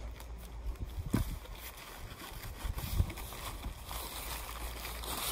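A cloth tripod bag being handled as its drawstring is loosened: faint rustling with two dull thumps, about a second in and at about three seconds, over a steady low rumble.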